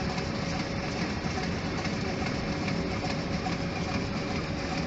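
Steady cockpit noise of a Boeing 737 on approach: a continuous rush of airflow and engine noise with a faint steady tone.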